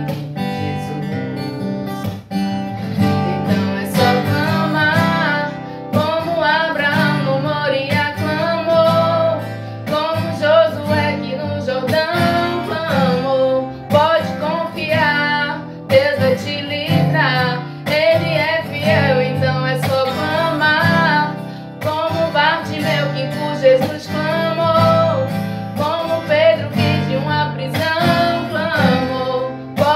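An acoustic guitar is strummed as accompaniment while a woman sings a worship song. Her voice comes in about two seconds in.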